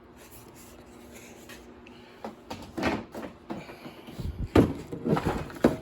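Hard plastic tool case and tools being handled: quiet at first, then a run of clacks and knocks from about two seconds in, with a few heavier thumps near the end.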